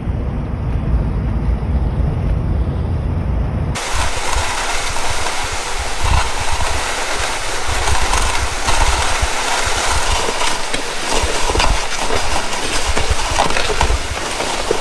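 Low, steady road rumble inside a moving pickup truck for about the first four seconds. Then, after a cut, a loaded plastic ice-fishing sled is towed across packed snow, giving a loud, uneven scraping and rattling.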